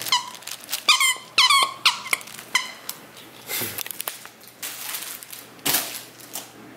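Squeaker inside a plush dog toy squeaking about six times in quick succession as a puppy bites on it, each squeak falling in pitch. Two short rustles follow later.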